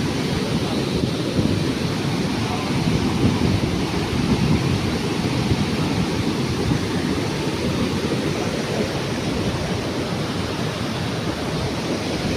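Steady rushing noise of high floodwater, heaviest in the low rumble.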